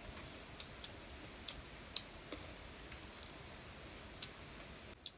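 Faint, irregular mouth clicks and smacks of people chewing food, about eight to ten scattered over a few seconds.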